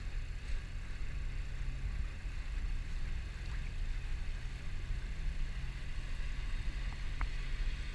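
Low, steady drone of a boat's engine running, with a faint wash of water noise.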